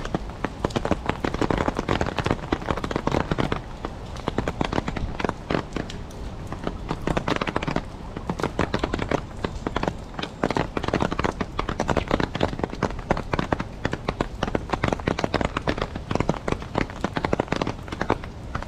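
Rain on a clear plastic umbrella held just overhead: a dense, uneven crackle of drops tapping the canopy.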